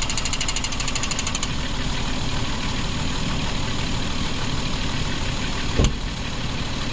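2011 Jeep Wrangler's 3.8-litre V6 idling with a misfire, one of its ignition coils dead. A fast high ticking runs through the first second and a half, and a single sharp click comes near the end.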